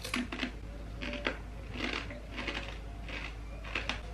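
Crunching of a hard, skin-on kettle-cooked potato chip being chewed, in irregular crisp crackles about once or twice a second.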